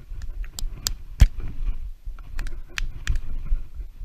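Irregular sharp clicks and taps from hands moving and knocking close to the microphone during a game of rock, paper, scissors, one much louder than the rest just over a second in, over a steady low rumble.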